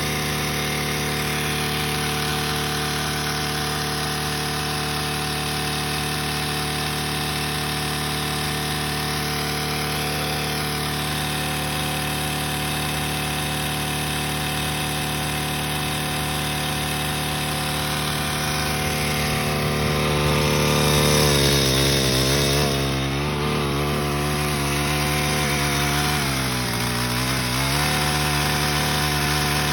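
Craftsman four-stroke small engine running hard with no oil in it, steady at first, then its speed drops and wavers unevenly over the last third. It carries a metallic sound that the owner thinks sounds like rod knock but can't be sure of.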